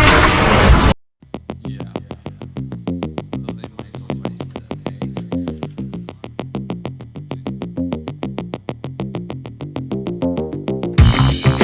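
Electronic background music. A loud, full passage cuts off about a second in, giving way to a quieter section of fast, evenly ticking pulses and stepping synth notes, and the full beat comes back near the end.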